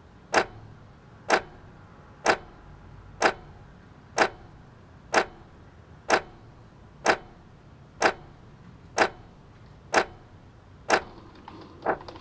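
Kit-Cat wall clock ticking, one sharp tick about every second, twelve ticks in all. A faint hiss comes in under the ticks near the end.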